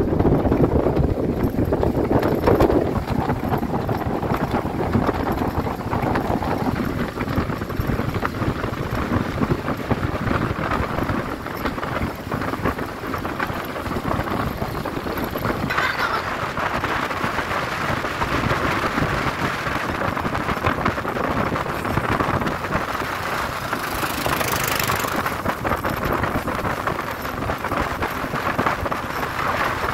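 Small open boat under way on choppy water: the boat's motor running steadily under wind buffeting the microphone and water rushing past the hull. A brief louder hiss comes about three quarters of the way through.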